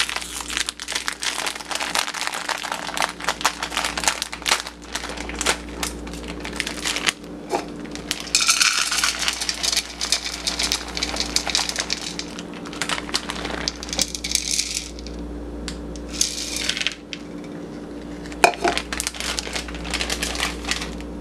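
Mini chocolate chips being scooped and poured into a plastic mixing bowl of oats: many small hard clicks and patters, with stretches of crinkly bag rustling around the middle.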